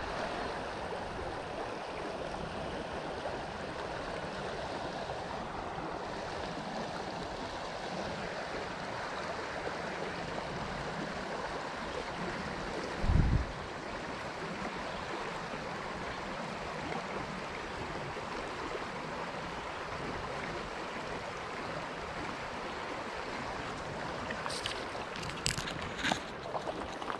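A trout stream flowing with a steady rush of water. There is a brief low thump about halfway through, and a few sharp clicks near the end.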